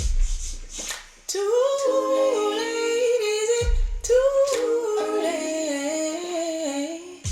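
Recorded song playing through 1978 LoD HS-1300 loudspeakers: a woman's voice, layered in harmony, hums a slow wordless melody. A low bass thump comes at the start and another about three and a half seconds in.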